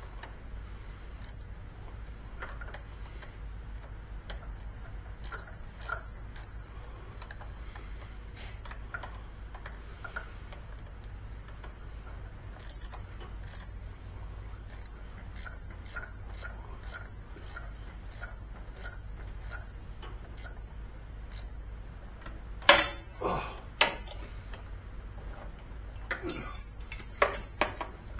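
Small metallic clicks and taps of hand tools and battery hardware being handled at a riding mower's battery terminals, over a steady low hum. A louder clatter of sharp knocks comes about two-thirds of the way in, and another run of knocks near the end.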